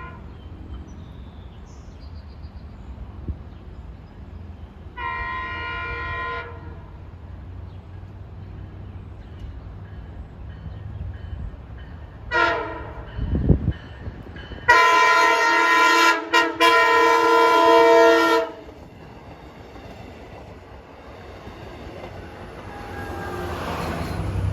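Long Island Rail Road train horn sounding as the train approaches: a short blast about five seconds in, another around twelve seconds, then a long, loud blast from about fifteen to eighteen seconds with a brief break in it. The train's rumble grows louder near the end.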